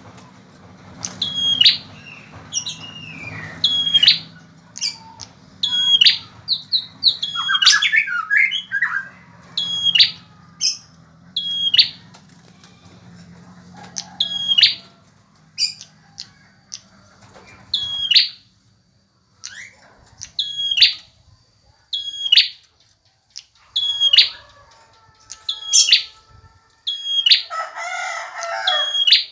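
Male prinia (prenjak) singing in a loud, insistent series: short, sharp, high chirps repeated about every one to two seconds, each dropping at its end. There is a quicker twittering run about a third of the way in and a short rough burst near the end.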